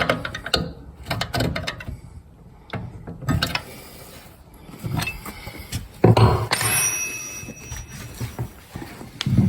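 Spanner working the wheel-adjustment nut on a Pallmann Cobra floor belt sander: irregular metal clicks and knocks, with a louder knock about six seconds in.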